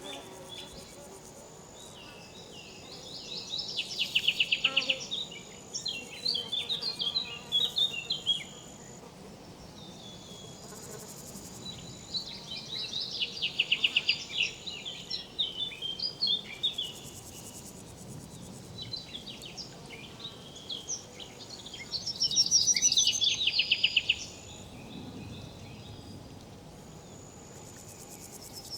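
Riverside insects: a high, thin steady buzz that comes and goes, with loud bursts of rapid chirps and trills repeating about every ten seconds.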